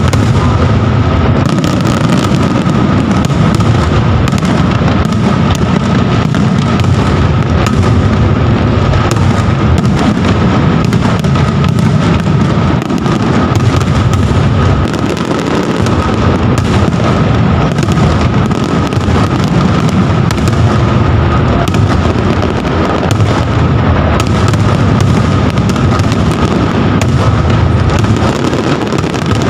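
Fireworks display: a dense, continuous barrage of aerial shells bursting, loud bangs running together with no pauses.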